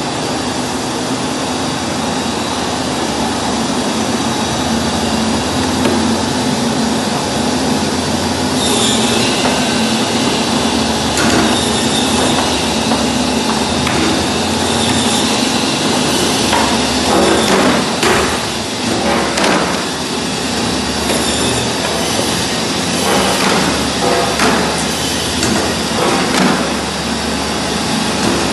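Automatic pig-feet cutting machine with a meat bandsaw running, a steady motor hum under dense mechanical noise. A higher hiss joins about a third of the way in, and from the middle on there are scattered sharp knocks and clatter as trotters are fed through and cut.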